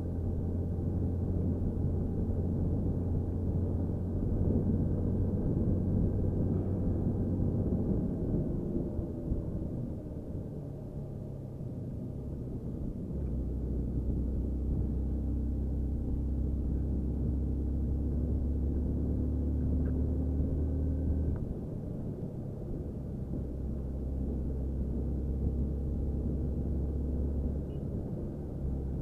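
Hero XPulse 200 motorcycle's single-cylinder engine running steadily as it climbs a mountain road. Its low note shifts in steps several times, first about ten seconds in, then again a few times later.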